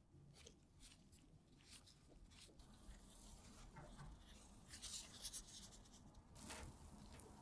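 Faint rustling and soft crackling of plastic food-prep gloves handling a cream-covered matcha sponge cake and pulling it apart, with a denser patch of rustles about five seconds in and a louder rustle near the end.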